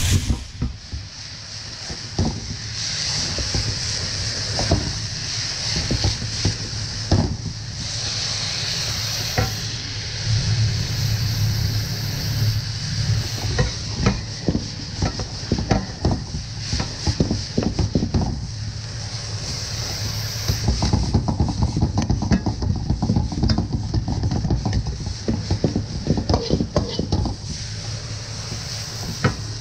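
Bean sprouts and julienned carrot stir-frying in a wok: a steady sizzle over a low hum, with a steel wok ladle scraping and clinking against the wok many times as the vegetables are tossed.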